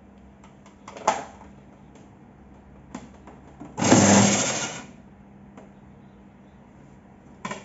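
Mollar DBS375 belt sander's motor switched on briefly in a quick test run, running for about a second and then winding down. There is a sharp click about a second in and another near the end.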